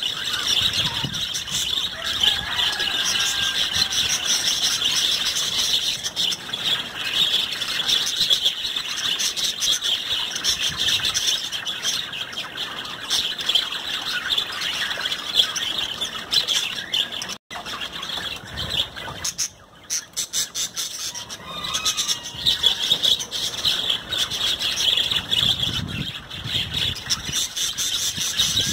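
A flock of budgerigars chattering and warbling nonstop: a dense mass of high chirps and squeaky calls, with a momentary break about two-thirds of the way in.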